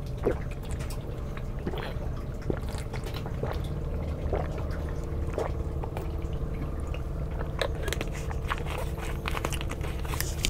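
A person drinking juice from a small bottle: faint swallowing gulps at irregular intervals, about once a second, over a steady low hum.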